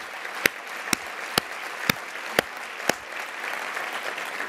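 Audience applauding, with one person's louder hand claps close to the microphone, about two a second, that stop around three seconds in while the applause goes on.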